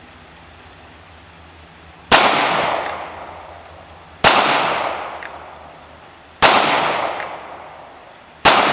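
North American Arms .22 Magnum single-action mini-revolver firing four shots about two seconds apart. Each is a sharp crack followed by an echo dying away over a second or so.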